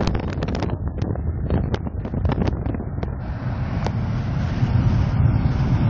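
Wind buffeting the microphone of a camera in a moving car, crackling in gusts during the first few seconds, over the steady low rumble of the car running along the road.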